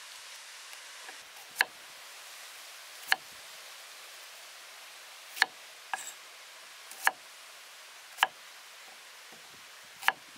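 Chef's knife chopping shallots, the blade knocking sharply against a wooden cutting board about six times, one to two seconds apart.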